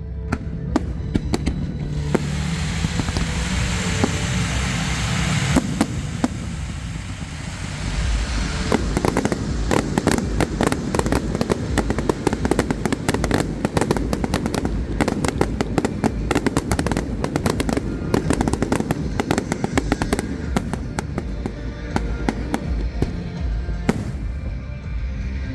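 Aerial fireworks display: a few seconds of hiss, then dense, rapid bangs and crackling from about a third of the way in, over a music soundtrack.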